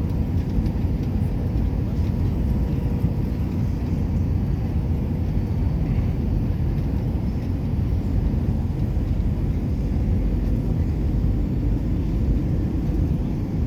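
Airliner cabin noise inside a jet: a steady low rumble of engines and rushing air with a faint steady whine.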